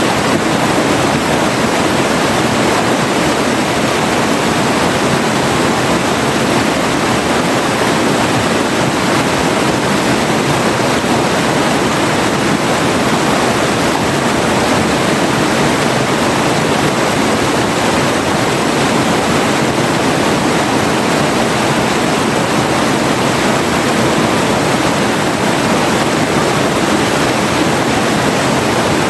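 Forest river flowing steadily, a constant rushing of water without pauses or changes.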